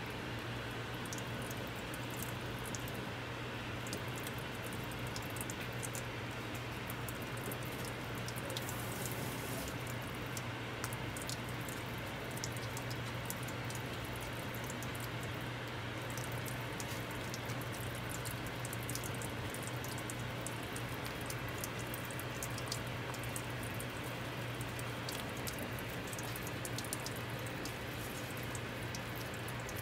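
Tap water running into a rubber mixing bowl of dental plaster powder, then a spatula stirring the wet plaster against the bowl, with frequent small clicks. A steady low hum runs underneath.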